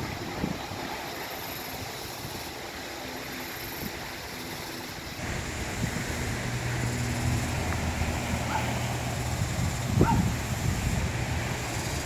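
Sea waves washing over shore rocks, with wind buffeting the microphone. From about five seconds in it grows louder and a low steady hum joins, and there is a single knock near ten seconds.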